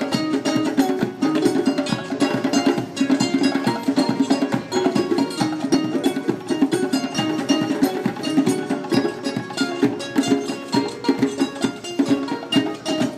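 Background music led by a quickly strummed ukulele, with a steady, busy rhythm.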